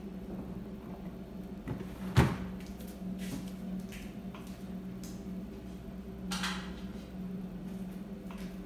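A refrigerator door is pulled open, with one sharp knock about two seconds in. A steady low hum runs underneath, and a few light clicks and a soft rustle follow.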